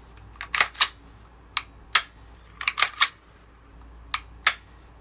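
Sharp mechanical clicks of an Elite Force Glock 17 gas airsoft pistol being worked by hand, its slide racked and trigger dry-fired, about ten clicks, several in quick pairs, showing off a crisp trigger.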